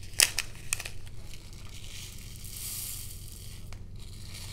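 Plastic zip bag of square diamond-painting crystals crinkling as it is handled and opened, then the small plastic crystals pouring out onto a plastic drill tray with a soft, high hiss about two seconds in.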